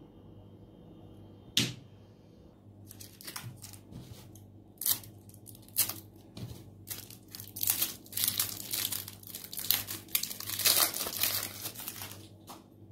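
Clear cellophane wrapper crinkling and tearing as it is pulled off a swirl lollipop, in a run of crackling rustles that grows denser and loudest near the end. A single sharp click comes about a second and a half in.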